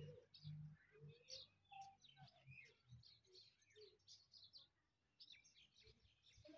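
Faint, scattered bird chirps and tweets, many short notes with no loud call among them.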